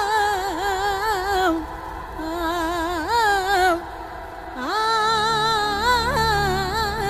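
Song with a woman singing a slow, wavering folk-style melody in three drawn-out phrases with short breaks between them. A low, sustained instrumental accompaniment comes in about four and a half seconds in.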